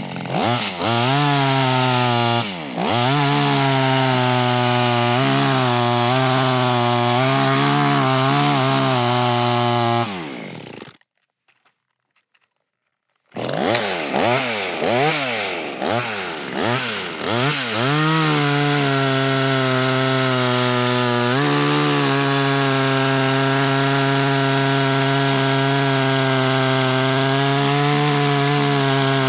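Small two-stroke clone chainsaw revving up and down and running at high revs as it cuts into a tree. The sound drops out completely for about two seconds a third of the way through, then the saw revs up again and holds steady full throttle to the end.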